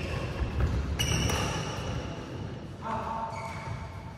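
Badminton play on an indoor court: a sharp racket hit on the shuttlecock about a second in, short squeaks of sneakers on the court mat, and dull footfalls.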